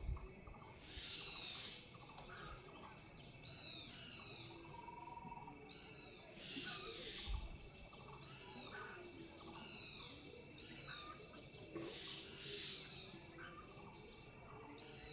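Birds chirping: a high call that sweeps downward, repeated about every second and a half, with fainter, lower chirps in between.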